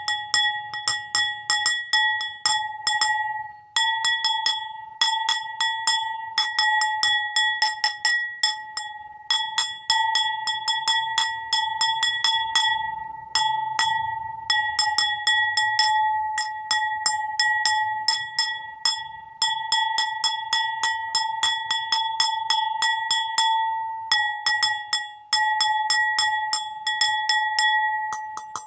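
A bowl struck again and again, several taps a second, each tap leaving a clear ringing tone that carries into the next. The runs of taps break off for brief pauses a few times.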